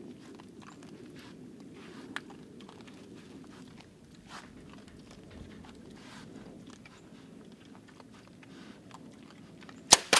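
Feral hogs crunching and chewing corn at a feeder, many small crunches at an irregular rate. Near the end, a bow shot: two sharp cracks in quick succession as the string releases and the arrow strikes the hog.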